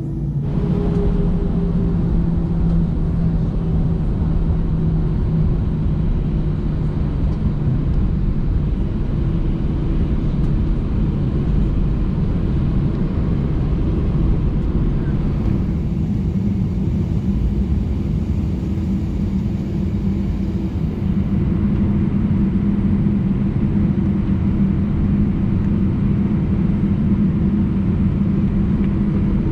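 Airbus A319 jet engines running at high power, heard inside the cabin as a loud, steady low drone with a hum of steady tones. It gets louder sharply about a second in, then holds.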